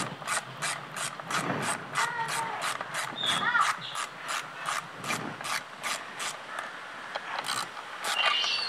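Socket ratchet wrench clicking steadily, about three clicks a second, as it is worked back and forth to loosen a visor screw.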